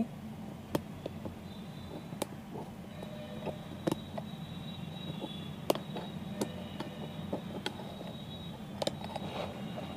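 Scattered sharp little metal clicks and light scrapes as a small pick works a tiny lock clip off a car wiper linkage's pivot shaft, over a steady low hum.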